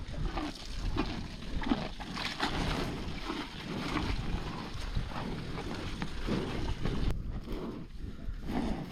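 Cows tearing and munching kale leaves in irregular crunchy bites, with wind rumbling on the microphone.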